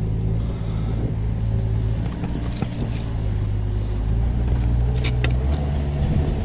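A motor running steadily with a low hum, its pitch shifting slightly about five and a half seconds in, with a couple of light clicks about five seconds in.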